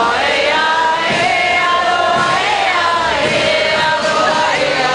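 A group of people singing a song together, with an accordion playing along.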